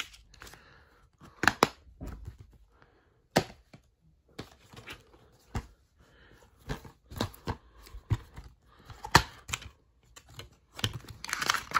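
Plastic DVD cases being handled: a scatter of sharp clicks and snaps as a case is shut, another picked up and its hinged lid opened, with a paper insert rustling near the end.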